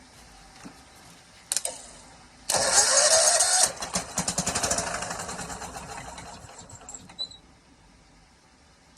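Kawasaki FH601V V-twin engine being cranked over for a start attempt: about a second of loud cranking with a rising whine, then a rapid train of firing pulses that fades out over about three seconds as the engine fails to keep running.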